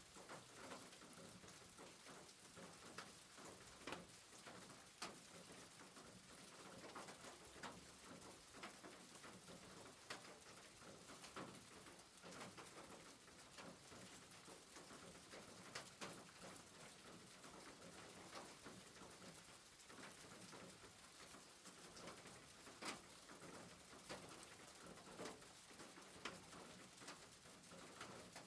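Faint rain falling on a rooftop: a steady soft hiss with irregular drips and taps pattering throughout.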